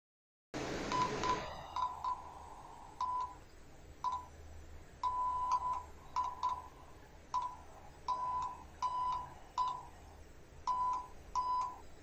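Morse code sent by hand on a phone's telegraph-key app: a steady mid-pitched beep keyed in short dots and longer dashes in uneven groups. A brief rush of noise comes at the very start.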